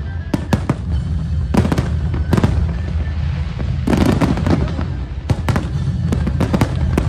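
Aerial fireworks going off: repeated sharp bangs and crackles from bursting shells, thickest about four seconds in, over a steady low rumble.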